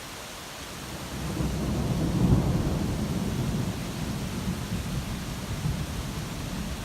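A roll of thunder over a steady hiss of rain. The deep rumble builds about a second in, is loudest a little after two seconds, then slowly dies away.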